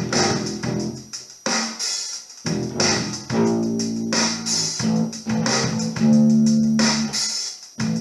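Electric bass guitar playing a funk riff: plucked notes that ring and die away, some with bright clicky attacks, with a short break in the line about two seconds in.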